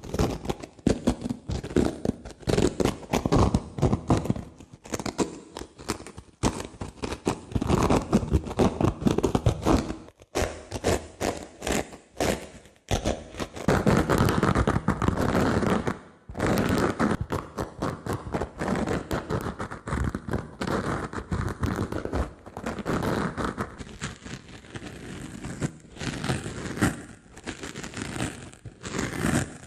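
Dry sponge being handled: scratchy, crackling rubbing and squeezing noise in long runs, broken by a few brief pauses.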